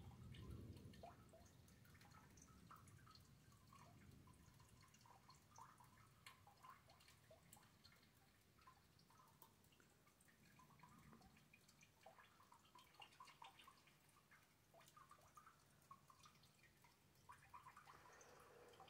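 Faint rain dripping: irregular, scattered drops of water ticking, with a soft low rumble in the first second.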